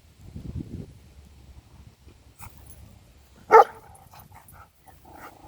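A dog barks once, short and loud, a little past halfway, with softer low dog sounds near the start.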